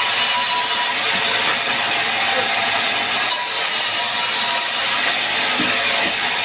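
Sawmill bandsaw cutting through sengon timber with a steady, loud, hissing saw noise that holds an even level throughout.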